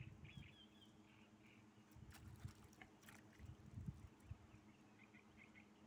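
Near silence: faint outdoor ambience with soft high chirping and a few faint clicks about two to three seconds in.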